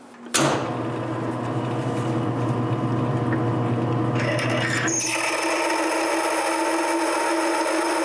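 Wood lathe starting up about a third of a second in and running steadily at low speed with a hum. From about four seconds in, a larger twist drill bit fed from the tailstock cuts into the end of the spinning metal morse taper, enlarging a pilot hole and adding a steady high-pitched metal-cutting whine.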